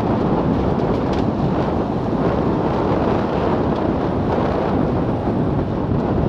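Steady rush of wind on the microphone mixed with tyre and road noise from a Milan Mk4 velomobile rolling at about 53 km/h on a paved road.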